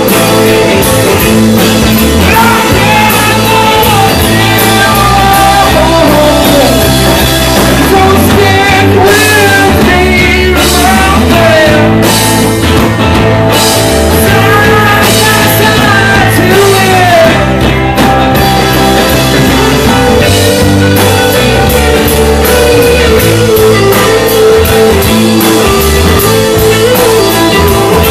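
Live rock band playing loud: electric guitar and drum kit with a vocalist singing over them.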